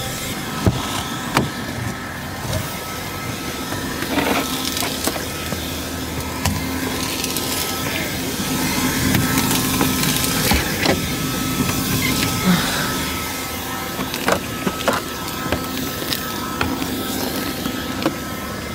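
Small Kärcher window vacuum running with a steady whine as it sucks condensation off the inside of the windscreen, with scattered short clicks.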